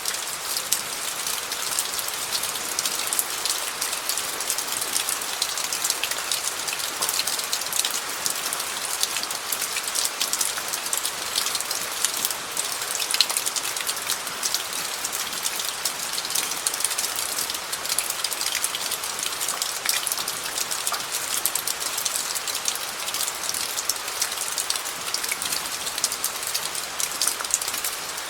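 Steady rain falling on gravel: a dense, even patter of countless small drop impacts, bright and crisp, with no letup.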